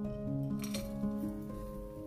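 Gentle solo piano music with steady held notes, and a single short clink a little under a second in, as crushed nuts are tipped from a glass bowl into a stainless steel frying pan.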